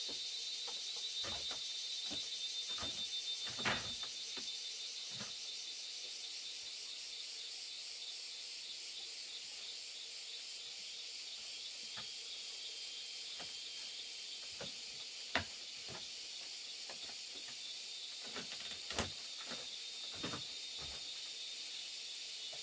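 Steady high-pitched chorus of insects, pulsing finely. Scattered knocks and taps of bamboo being handled and set down on a bamboo bench and slat floor, a few of them sharper.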